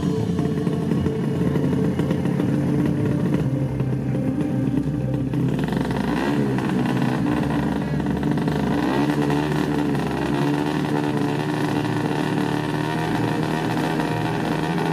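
Drag-racing motorcycle engines revving, the pitch climbing and dropping in blips about six and nine seconds in.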